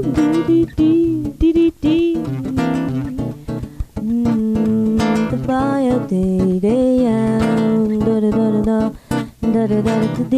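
Acoustic guitar being played with a woman's voice singing a wordless melody over it.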